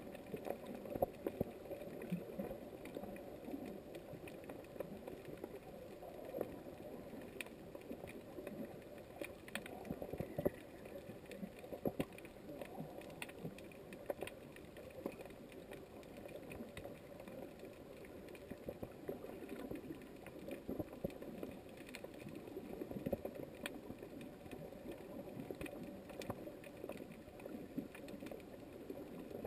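Muffled underwater ambience recorded through a GoPro's waterproof housing: a low, steady wash sprinkled with small, irregular clicks and crackles.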